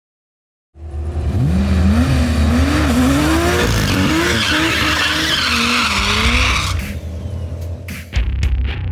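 Turbocharged Barra inline-six of a Ford FPV F6 Typhoon revving up and down while the tyres spin and squeal, as in a burnout, for about six seconds before the noise drops away.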